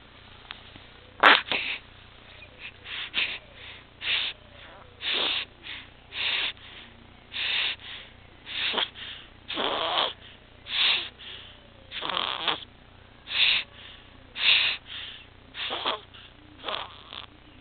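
A baby's noisy breathing (stridor): a quick, irregular run of harsh breaths, one to two a second, starting about a second in. It is the sign of a floppy, narrowed airway from laryngomalacia and tracheomalacia.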